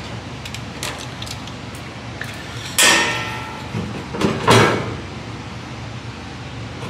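A few light clicks, then two loud scraping clatters about a second and a half apart, each trailing off, over a steady low hum.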